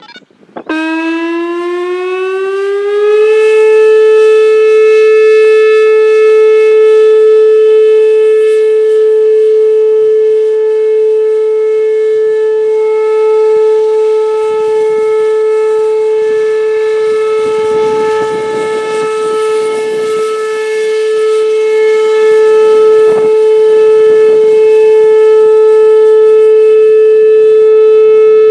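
Whelen Vortex R4 electronic warning siren starting its Alert signal: under a second in it sweeps up in pitch for about two seconds, then holds one loud, steady tone with a stack of overtones.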